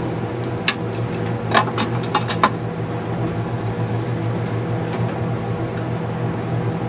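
A handful of sharp clicks and taps, one at under a second in and a quick cluster between about one and a half and two and a half seconds in, from hand tools being handled and set down on a workbench. A steady low hum runs underneath.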